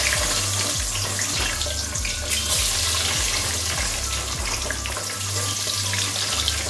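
Frozen French fries deep-frying in a pot of oil at about 207 °C, the oil sizzling and bubbling hard in a dense, steady hiss full of fine crackles.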